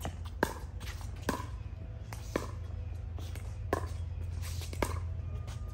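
Pickleball paddles striking a hard plastic ball back and forth in a doubles rally: sharp pops about once a second, over a steady low hum.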